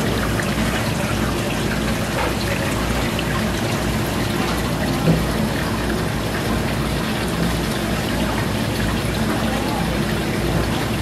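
Steady bubbling and trickling of water in a live seafood tank, its aeration running without pause.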